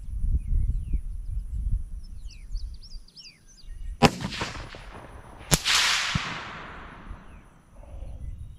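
Savage 110 rifle in .204 Ruger firing a shot, heard as two sharp cracks about a second and a half apart, the second trailing off in a long fading echo. Birds chirp briefly before it.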